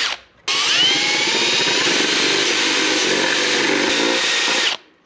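Cordless drill with a step bit boring a hole through a plastic electrical enclosure. After a brief burst at the start, it runs steadily for about four seconds, with a rising whine as it spins up, then stops suddenly.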